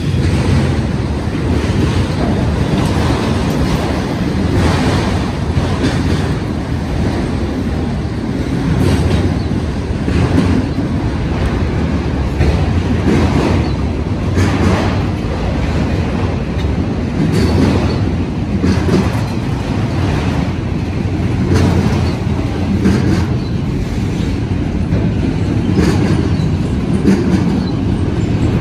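Freight train rolling past: a steady rumble of steel wheels on rail, with clacks every second or two as the wheels strike the track.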